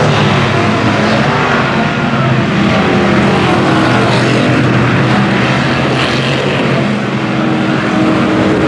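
Mega mud truck's engine running hard and loud without pause as the truck plows through deep mud.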